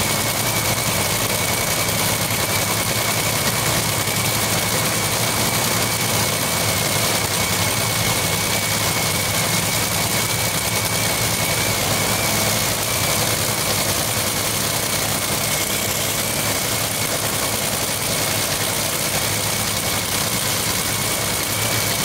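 An engine idling steadily, with a constant thin high whine over it.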